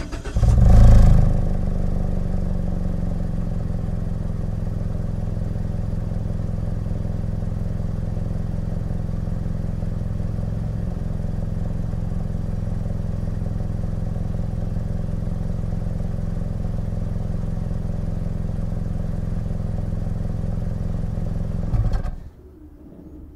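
Mazda CX-5 small SUV heard from behind the car: the engine cranks and starts, flares up briefly about a second in, then settles to a steady idle. Near the end it is switched off and the sound drops away suddenly.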